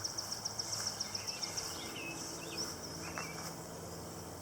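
Outdoor ambience: a rapid, high trill of chirps, about eight a second, that fades after about two seconds, with short scattered bird calls and a faint low steady hum behind.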